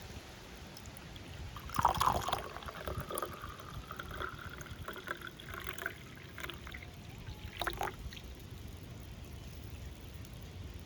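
Liquid being poured into a cup, a trickling pour that starts about two seconds in and runs for a few seconds, then a brief second splash near the end.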